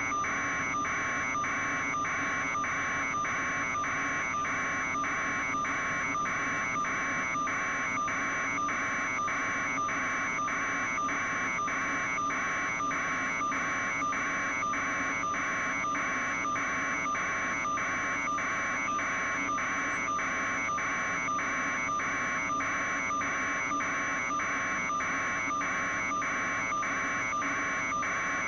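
Helicopter cabin noise: a steady drone with a high whine, overlaid by a regular buzzing pulse about two to three times a second.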